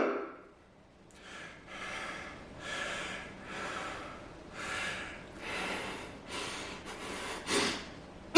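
A man breathing hard and fast between strained yells during a set of barbell curls to failure, about one loud breath every 0.7 seconds. The breaths start about a second in, after a brief silence, and there is a sharper gasp near the end.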